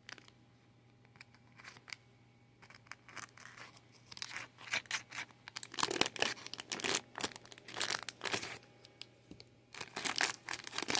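Packaging of a fidget toy being crinkled and torn open by hand: irregular crackling, sparse at first, then denser and louder from about four seconds in.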